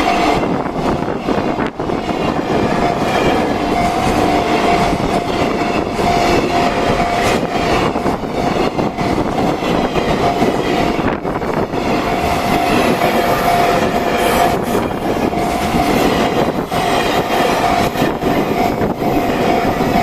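A long locomotive-hauled freight train passing close by a level crossing, its wagons rumbling and clattering over the rails without a break. The crossing's warning bell rings through the train noise.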